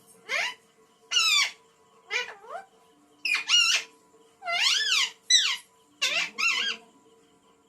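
Rose-ringed parakeet (Indian green parrot) vocalising in a series of about eight short, shrill calls that sweep up and down in pitch, with brief pauses between them.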